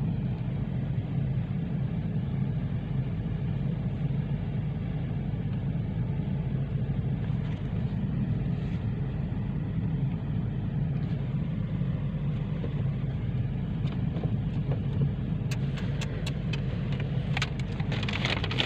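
Steady low rumble of road and engine noise inside a moving car's cabin, with a few sharp ticks near the end.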